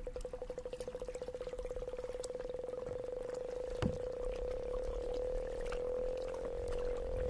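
Sonic Kayak's synthesized sonification tone: a single mid-pitched electronic tone pulsing rapidly, the pulses speeding up until they blur into a steady tone that drifts slightly up in pitch in the second half. A single short knock comes about four seconds in.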